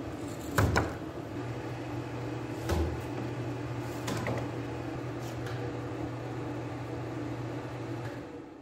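A machine's steady electrical hum, switched off about eight seconds in. A few sharp knocks from wood and tools being handled come in the first half.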